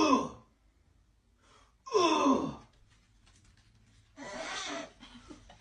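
Breathy voice sounds: gasping, sigh-like exhales that fall steeply in pitch, about two seconds in and again at the very start, with a hoarser, noisier breath near the end.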